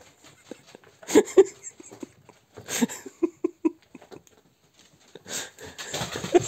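Knocks and scuffles of a kitten pouncing on carpet after a laser dot, with a quick run of four short sounds in the middle. Near the end, a denser clatter of a dachshund's claws scrabbling on a laminate floor.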